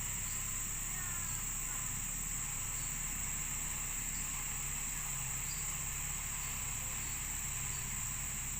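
Steady, high-pitched drone of insects, with a low engine hum running steadily underneath.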